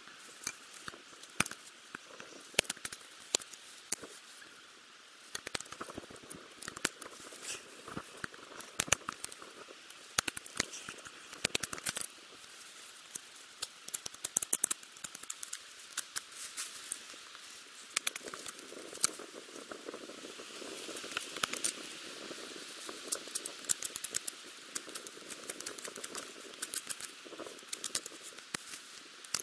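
Knife splitting and working small sticks of kindling on a rock: irregular sharp knocks and wood cracks, with a short quick run of clicks about halfway through and a stretch of rustling later on.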